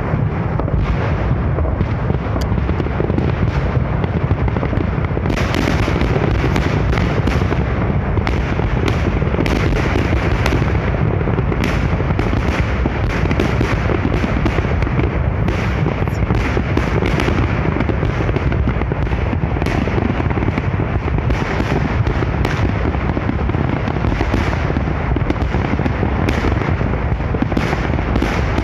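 Large fireworks salute going off as a dense, continuous barrage: overlapping bursts blend into a steady rumble, with many sharper cracks throughout.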